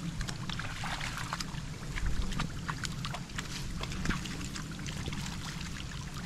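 Small, irregular splashes and squelches of hands and feet in shallow muddy paddy water as rice seedlings are pushed into the mud by hand.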